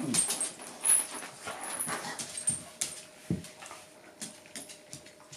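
Shiba inu and bull mastiff play-fighting over a chew ball: busy scuffling with short dog noises, busiest in the first two seconds, and one low thump about three seconds in.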